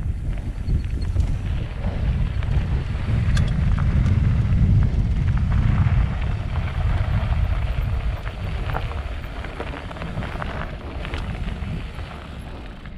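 Wind buffeting the action camera's microphone while a downhill mountain bike rolls over a dirt trail, with tyre rumble and scattered clicks and rattles from the bike. The noise swells to its loudest in the middle and eases off toward the end.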